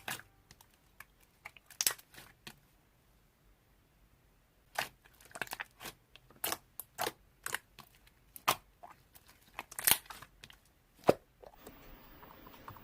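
Irregular sharp crackles and clicks, a few at first, then a quiet stretch, then a denser run with one loudest crack near the end.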